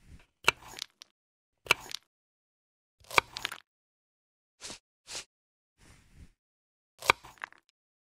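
Kitchen knife chopping and cutting on a wooden cutting board: a series of about seven short, sharp crunching strikes, each followed by a brief scrape, with dead silence between them.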